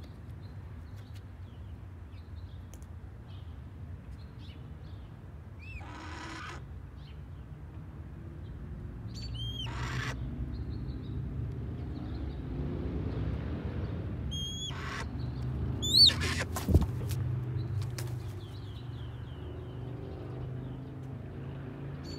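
Red-tailed hawk giving short, hoarse screeches several times, a few seconds apart: the angry screech of a bird kept waiting for its food. A sharp knock about seventeen seconds in is the loudest sound, over a steady low rumble.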